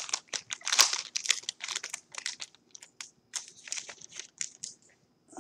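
Shiny trading card pack wrapper being torn open and crumpled by hand: quick irregular crinkling crackles that thin out and stop near the end.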